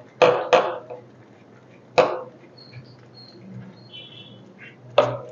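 Sharp metal knocks and clicks from a hand working in the oil sump of an industrial sewing machine, each with a short ring: two close together near the start, one about two seconds in and one near the end.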